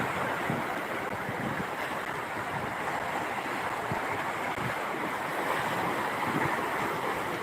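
Steady rush of waves, with no distinct events.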